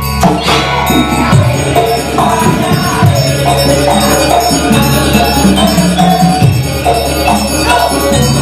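Banyuwangi Gandrung dance music from a traditional percussion-led ensemble: held low tones under frequent drum strokes and metallic percussion, keeping a steady dance rhythm.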